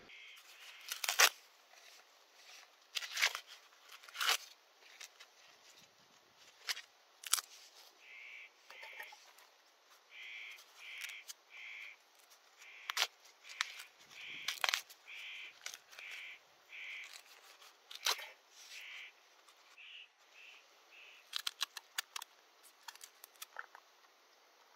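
Fresh ears of corn being husked by hand: sharp, irregular tearing and snapping of the green husks. From about eight seconds in, a bird calls repeatedly in short notes about half a second apart.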